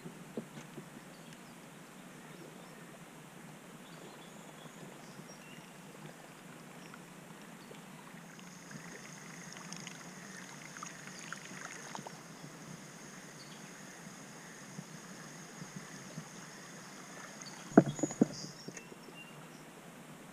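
Quiet river ambience around a fishing kayak: a soft, even hiss of water and air. From about eight seconds in, a thin, high, steady buzz joins it, and a short cluster of sharp knocks comes a couple of seconds before the end.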